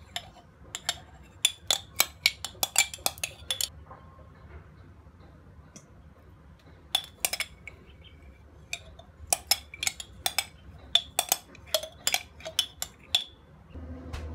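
A metal spoon clinking and scraping against a sauce jar and a stainless-steel mixing bowl while thick chu hou paste is scooped out, in two runs of quick, sharp clinks.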